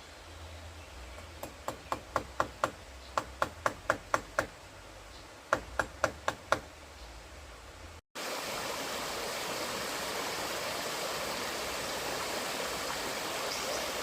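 A run of about a dozen sharp knocks, roughly three a second, then a short pause and five more. After a sudden cut, the steady rush of flowing river water.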